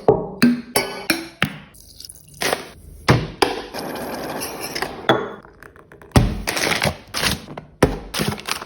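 Kitchen food-prep sounds: a series of sharp knocks and chopping-like strikes, with a stretch of steady hiss around the middle.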